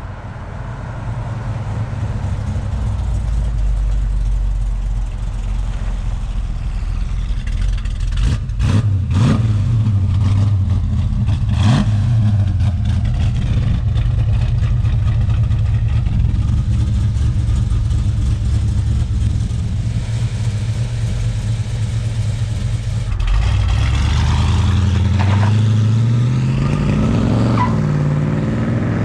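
Hemi V8 engine of a 1969 Dodge Charger running with a deep, steady idle and a few quick throttle blips. Near the end the revs climb steadily.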